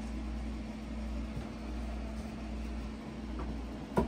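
Steady low background hum, with one short sharp knock about four seconds in as something is handled at the printer.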